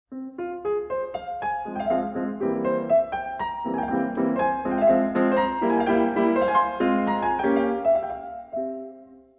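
Background piano music: a melody of single notes and chords, several notes a second, dying away near the end.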